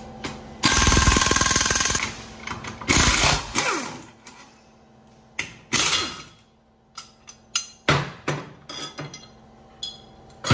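Impact wrench rattling in three short bursts, the first and longest about a second in, as it loosens bolts on a manual gearbox, followed by light clinks and knocks of metal parts being handled.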